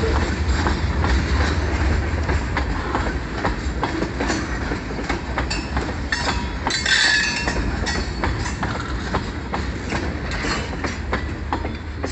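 Freight train tank cars rolling past, steel wheels clicking rhythmically over rail joints over a steady low rumble. A brief high-pitched screech comes about seven seconds in, and the sound eases slightly as the last cars pass.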